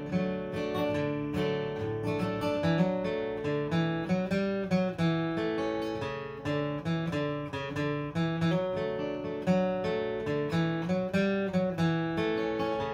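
Solo acoustic guitar playing an instrumental break: a picked melody over bass notes in a steady, even rhythm, with no singing.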